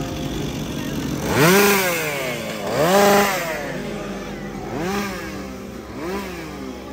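Chainsaw engine revved up and let back down four times; the first two revs are the longest and loudest, the last two shorter and fainter.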